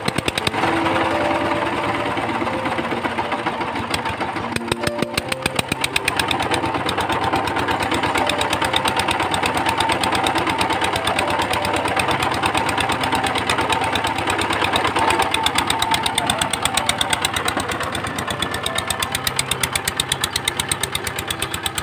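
VST Shakti 130 DI power tiller's single-cylinder diesel engine running with a steady, rapid knocking beat. Background music is heard in the first few seconds.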